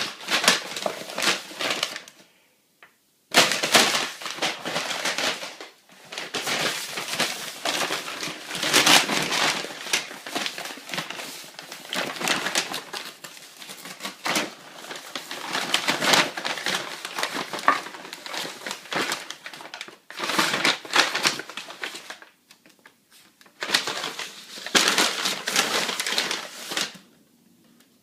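A dog crumpling and tearing a paper bag to get at the ball inside, in bursts of loud crackling and crunching paper broken by short pauses.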